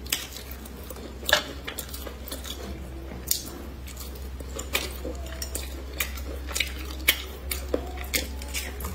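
Chopsticks clicking and tapping against a ceramic bowl while picking up pieces of braised fish in sauce: sharp clicks about every second, with soft wet eating sounds between them. A steady low hum runs underneath.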